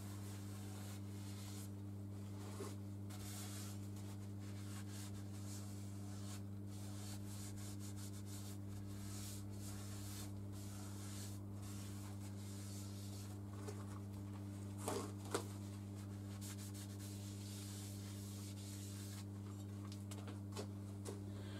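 Cloth rubbing in short repeated strokes on the top face of a BSA B31's cast-iron cylinder barrel, wiping off grinding paste after the head has been lapped to it. A steady low electrical hum runs underneath, and a couple of light knocks come about two-thirds of the way in.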